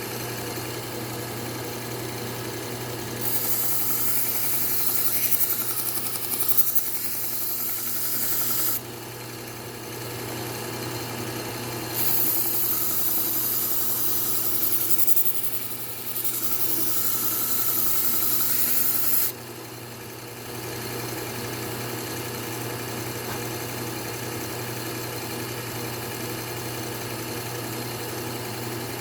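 Belt sharpener motor running steadily with a Trizact A30 abrasive belt, while a knife edge is ground against the belt in three passes, each a bright grinding hiss lasting a few seconds.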